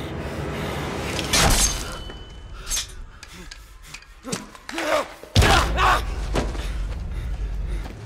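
Film soundtrack of a violent struggle: tense music under several heavy crashes, the loudest about a second and a half in and just past five seconds, with a voice crying out between them.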